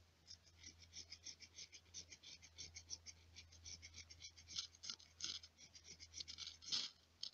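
Ferro rod (fire steel) scraped in quick short strokes, about four or five a second, throwing sparks onto resin-soaked fatwood shavings to light them; one louder scrape near the end.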